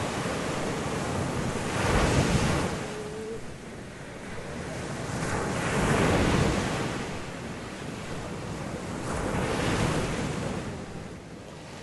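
Ocean waves surging and washing over a steady rush of wind, in three swells about four seconds apart that ease off near the end.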